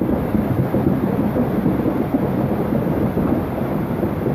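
Storm-swollen creek rushing in a steady low roar.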